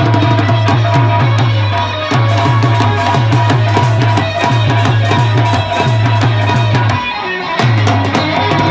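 Loud stage-band dance music: fast hand drumming over a heavy, even bass beat. The bass beat breaks off for a moment about seven seconds in, then picks up again.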